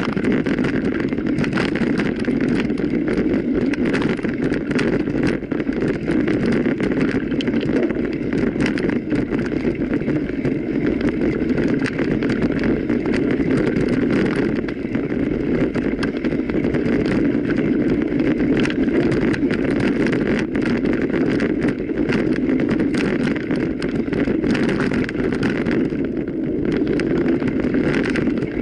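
A mountain bike being ridden over rough ground: a steady rumble of wind on the microphone and tyres on the trail, with constant small rattles and clicks from the bike.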